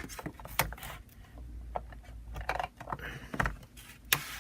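Handling noise from plugging a power cord into a portable cassette recorder: a string of separate clicks and light knocks, with a faint low hum underneath.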